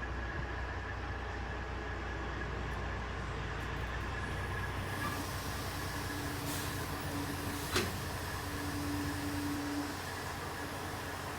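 A steady low rumble like a running vehicle engine that eases off about five seconds in, with a faint hum coming and going after it and a single sharp click near the end.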